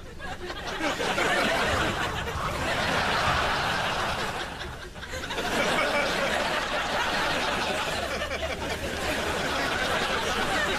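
Studio audience laughing in a long wave. It builds about a second in, dips briefly around five seconds, then swells again.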